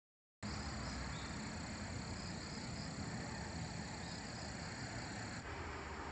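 Silence for the first half second, then forest ambience: a steady high-pitched insect chorus over an even hiss, softening a little about five seconds in.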